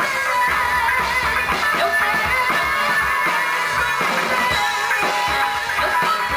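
A live gospel band playing: guitars over a drum kit, an instrumental passage with no singing.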